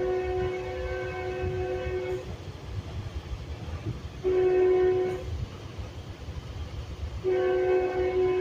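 Metrolink commuter train's multi-tone air horn sounding a long blast, a short one, then another long one, over the low rumble of the train running along the rails. The long-short-long sequence matches the end of the standard grade-crossing horn signal.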